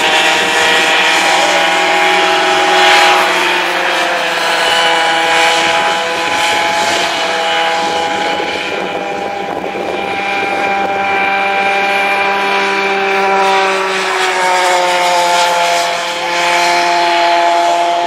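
Several small two-stroke Easykart 50 kart engines running at high revs together, a high buzzing whine whose pitch dips and climbs again as the karts slow and accelerate around the track.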